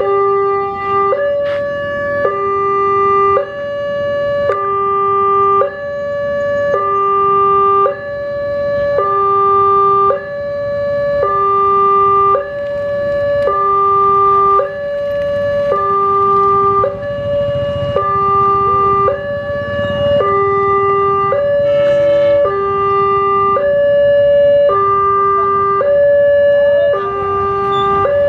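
Railway level-crossing warning alarm sounding a two-tone signal, a higher and a lower tone alternating about once a second, warning that a train is approaching. In the second half the low rumble of the approaching diesel locomotive builds beneath it.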